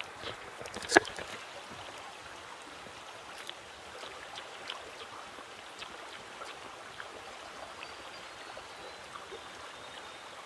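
Small stream flowing steadily, with one sharp knock about a second in and light scattered crunches of raw watercress being chewed.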